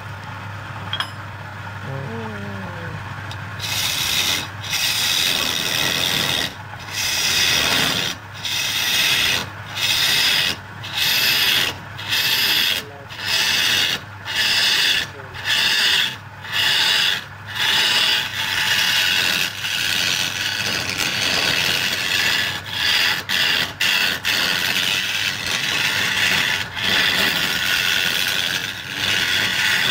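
A handful of wood shavings rubbed against a spinning workpiece on a wood lathe, burnishing the freshly turned surface: a rough rubbing hiss in repeated strokes about a second apart, starting about four seconds in, over the low hum of the lathe.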